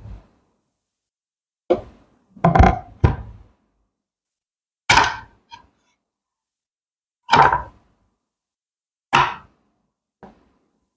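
A series of separate thunks and knocks, about seven, spaced one to two seconds apart with silence between them. The last one is faint.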